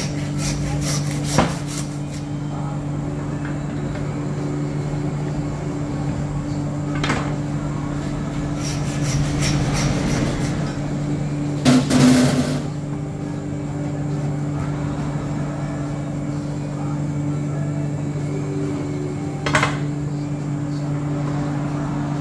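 Hand bone saw cutting through a pork shoulder in short, even strokes near the start and again around halfway, with a few sharp knocks of meat and tools on the cutting board. A steady low hum runs underneath.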